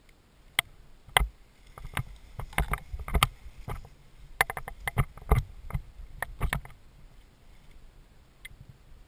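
Irregular clicks, knocks and rustles of paraglider lines and risers being gathered up by hand in dry grass and brush, picked up close by a helmet-mounted camera. The knocks come thick for the first six or so seconds, then thin to a few faint clicks near the end.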